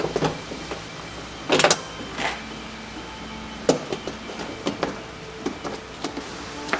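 Scattered sharp clicks and knocks of parts being handled and fitted on a truck's door, the loudest a quick cluster about a second and a half in, over a faint steady hum.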